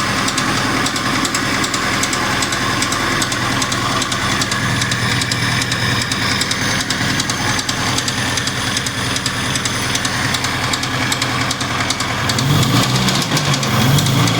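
VAZ-2101 four-cylinder engine running with a fast, steady metallic knock from a worn piston pin. Music comes in near the end.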